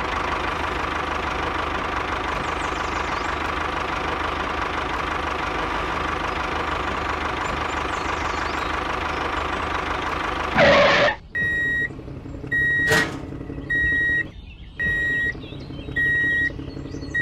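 A small engine-like machine running steadily with a constant whine for about ten seconds, then cut off by a short whoosh. A reversing alarm follows, beeping at one high pitch about once a second.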